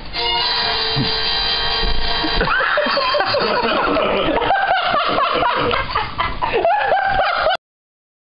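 Music for about two and a half seconds, then a stretch of laughter that cuts off abruptly near the end.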